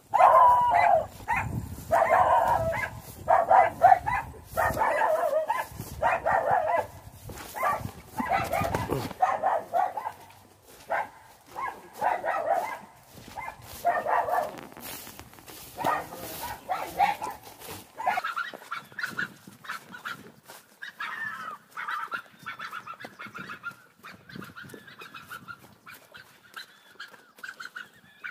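Farm animals calling: a dense run of short, loud calls over the first nine seconds or so, then fainter, more drawn-out calls toward the end.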